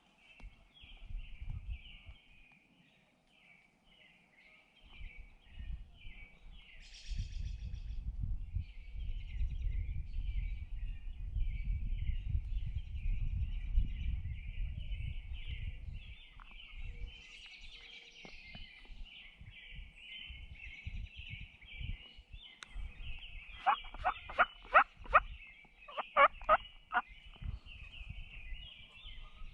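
Turkey calls: two loud runs of rapid notes, about five and then four, near the end, over a steady dawn chorus of chirping songbirds. A low rumble comes and goes in the middle.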